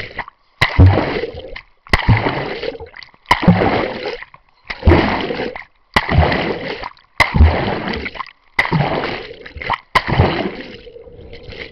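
Water splashing and sloshing right at a camera dunked through the surface, in repeated bursts a little over a second apart, each opening with a sharp hit and a thud, then fading and cutting off abruptly.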